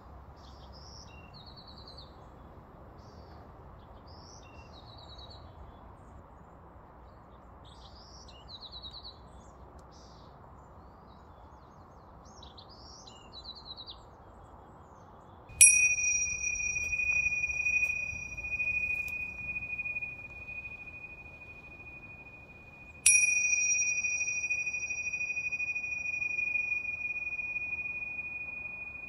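Small birds chirping and trilling in short repeated phrases. About halfway through, a pair of tingsha cymbals is struck, then struck again about seven seconds later, each strike ringing on in a clear high tone that slowly fades.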